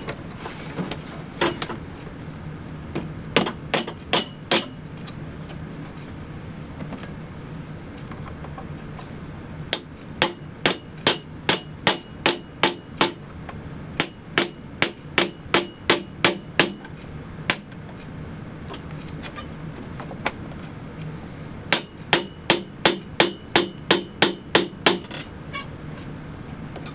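Hammer tapping in runs of sharp strikes, about two to three a second, with pauses between runs. This is the fastening of a replacement hinge onto a wicker picnic basket.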